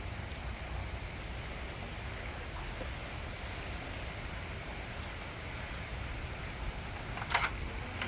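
Hurricane-force gusty wind blowing steadily, with a low rumble of wind buffeting the microphone. Two sharp clicks sound close together near the end.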